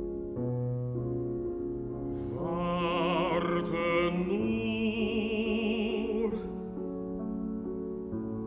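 High Romantic vocal music: an operatic voice with wide vibrato sings a sustained phrase over piano chords. The voice comes in about two seconds in and stops about six seconds in, with the piano playing alone before and after.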